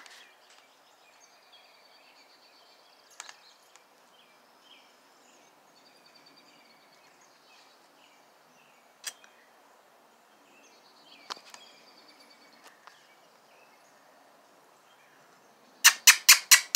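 Quiet backyard ambience with songbirds chirping and trilling in the distance and a few faint clicks. Near the end comes a quick run of about six loud, sharp taps.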